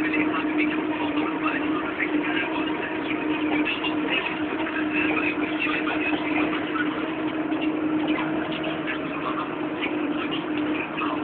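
Deutz-Fahr Agrotron K100 tractor engine running steadily under load while pulling a cultivator, heard from inside the cab, with a steady hum and light rattling on top.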